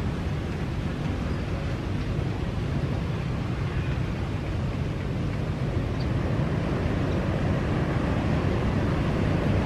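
Jet engines of a twin-engine airliner at low power as it rolls along the runway toward the listener after landing: a steady low rumble that grows louder from about halfway through.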